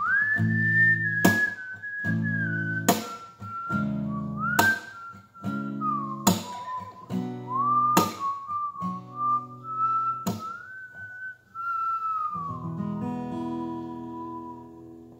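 A person whistling a melody over a strummed acoustic guitar, with a chord struck about every one and a half seconds. Near the end a last, softer chord rings out as the whistled line settles on one note and fades.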